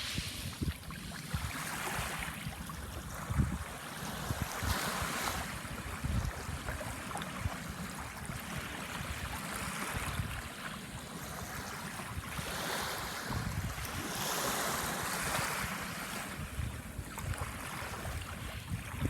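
Small sea waves washing onto a sandbar shore, the hiss of the surf swelling and ebbing every few seconds. Low wind rumble buffets the microphone throughout.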